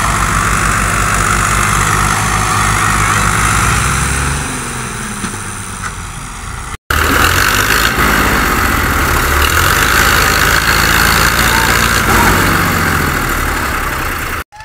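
Tractor diesel engines running loudly under the load of a heavily laden sugarcane trolley, the revs rising and falling. The sound breaks off for an instant about seven seconds in and comes back just as loud.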